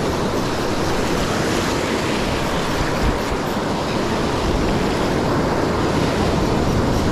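Surf breaking and washing up over shallow sand and reef in a steady rush, with wind buffeting the microphone.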